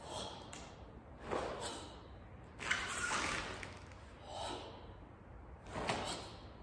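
A karateka's sharp, forceful breaths pushed out with the techniques of the kata Gekisai Sho, about five of them, one every second and a half or so.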